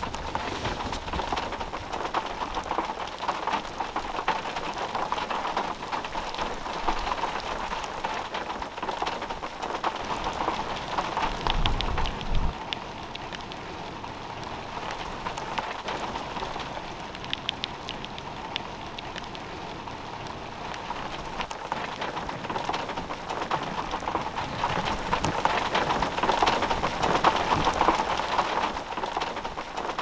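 Heavy rain falling and striking water, a steady dense hiss with fine crackle, with a brief low rumble about twelve seconds in.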